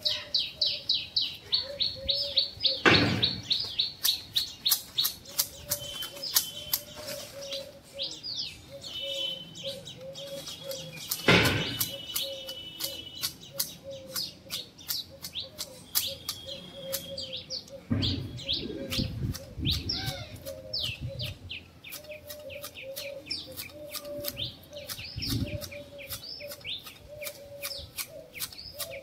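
Small birds chirping in rapid, continuous calls, with clicks and clacks from manual hedge shears cutting a bush; two loud sharp snaps stand out, about three and eleven seconds in.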